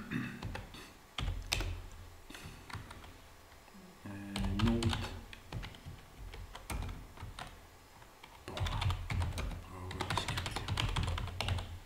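Computer keyboard being typed on: quick runs of key clicks in several bursts, with short pauses between them.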